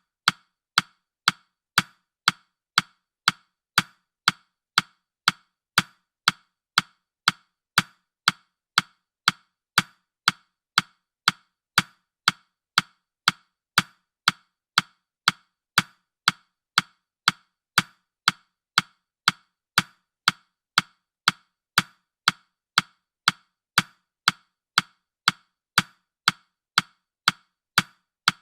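Steady ticking of a countdown timer's clock-tick sound effect, even and unchanging at about three ticks every two seconds.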